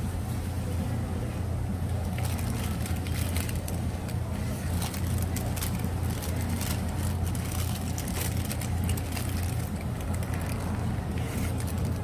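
A burger's paper wrapper rustling and crinkling in the hands, in many quick crackles from about two seconds in until near the end, over a steady low hum.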